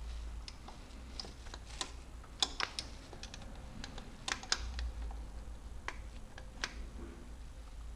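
Scattered light metallic clicks and taps of a hand wrench and fingers against engine parts, while the timing-belt tensioner is being set. The sharpest clicks come in pairs a couple of seconds apart in the middle of the stretch.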